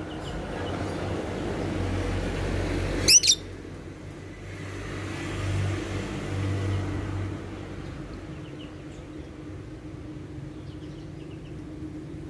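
A small bird gives two short, sharp, loud chirps about three seconds in, over a low background rumble. A few faint chirps follow later.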